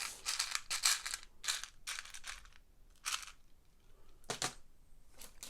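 Small plastic Lego Technic pieces clattering and rattling as a hand rummages through a parts container, in a string of short bursts that trail off into scattered clicks.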